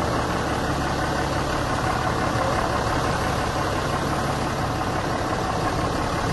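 A vehicle driving slowly: a steady engine hum with a constant low drone, no change in speed.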